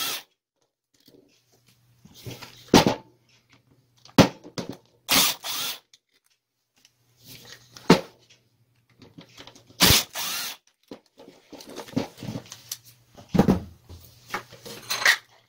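Parts of a partly dismantled angle grinder being worked apart by hand: a series of separate clicks, knocks and short scraping slides of metal and plastic as the gear head and armature are pulled out of the motor housing.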